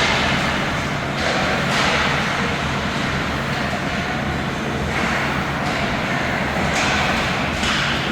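Ice hockey rink during play: a steady low rumble and hum, with several short hissing scrapes of skates on the ice.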